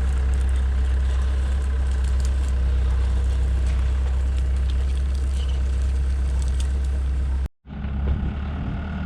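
Heavy farm-vehicle engine running steadily at a low rumble. It cuts out abruptly for a split second about seven and a half seconds in, then the engine sound carries on.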